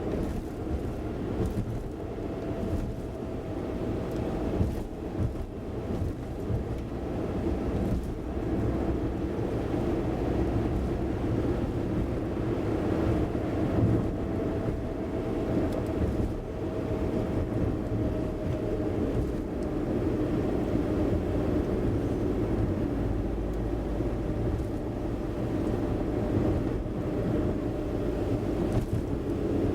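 A car driving, heard from inside the cabin: steady engine and tyre road noise with a faint steady whine.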